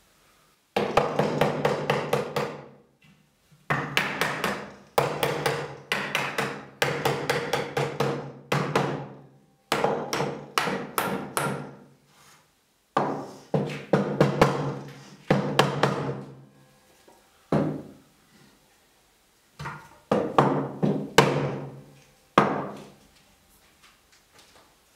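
Hammer blows on wood in quick runs of about five or six strikes a second, a dozen or so runs with short pauses between. The wooden workpiece rings with each blow.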